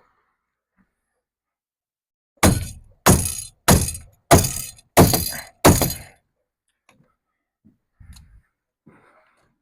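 Six loud blows on the wooden shipping crate, about one every two-thirds of a second, as it is knocked apart during uncrating, followed by a few faint knocks.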